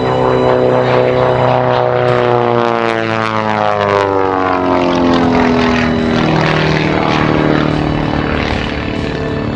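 Pitts S-1S aerobatic biplane flying past, its piston engine and propeller falling steadily in pitch as it goes by, then holding a lower note for the last few seconds.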